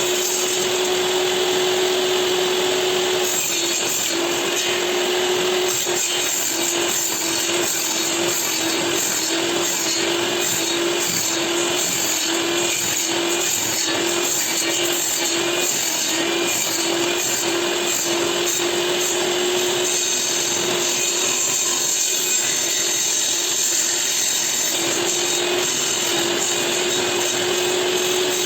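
Bosch GTS 10J table saw running and cutting wood: a steady whine over a rough sawing noise, the whine pulsing about once a second through the middle stretch before steadying again.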